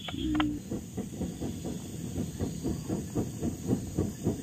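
Rhythmic whooshing of a campfire being fanned to bring it to glowing embers, about three to four puffs a second. A brief voiced sound comes at the very start.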